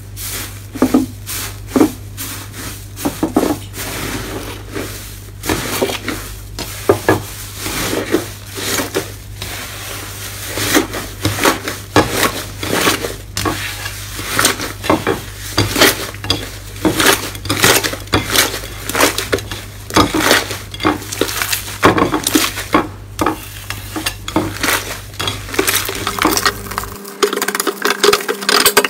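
Hands kneading, squeezing and tearing a thick, fluffy red slime. Trapped air gives off rapid, irregular crackles and squishy pops.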